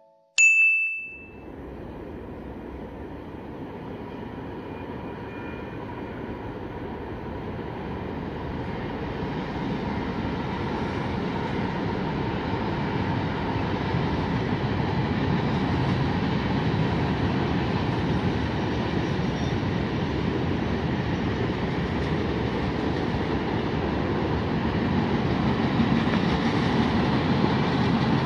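Mixed freight train rolling past, its hopper and tank cars giving a steady rumble and wheel noise that grows gradually louder.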